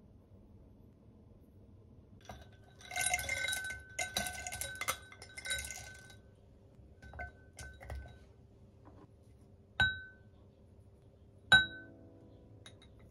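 Pine nuts poured into the glass bowl of a small food chopper, rattling and clinking against the glass for about three seconds. A few lighter taps follow as more ingredients drop in, then two sharp clinks that ring briefly, the second the loudest.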